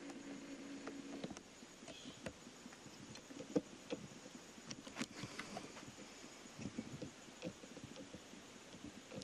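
A steady hum that stops about a second in, followed by scattered light clicks and knocks at irregular intervals.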